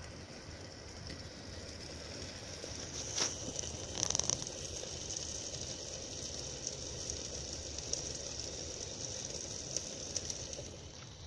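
Small homemade wood-pellet stove burning under a pot of chicken cooking without water: a steady hiss with a couple of sharp crackles about three and four seconds in.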